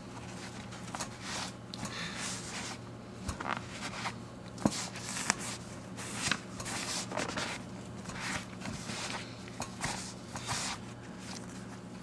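White towel wiping and rubbing a leather gear-shift boot in irregular rustling strokes, with a few soft knocks as the boot is handled, taking off the lathered leather cleaner and loosened dirt. A steady low hum runs underneath.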